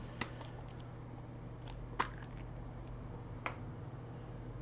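Three light, sharp clicks, the middle one loudest, with a few fainter ticks between, as small screws and tools are handled on a repair bench during a phone teardown, over a steady low hum.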